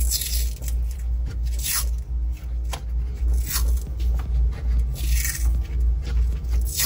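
Tape being pulled off its roll and wrapped around a car stereo wiring harness: several short rasping peels, over a steady low pulsing beat.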